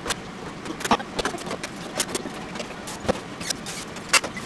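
Kitchen work sounds: scattered short clicks and knocks at an irregular pace over a faint steady hum.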